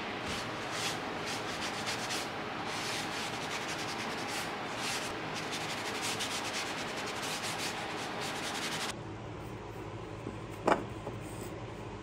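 Repeated abrasive rubbing strokes by hand, as in sanding or scrubbing down parts. The sound cuts off abruptly about nine seconds in. A single sharp knock comes near the end.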